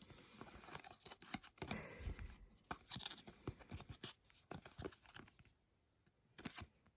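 Faint rustling of trading cards being handled, with light scrapes and flicks as cards slide over one another, and a short pause about two-thirds of the way through.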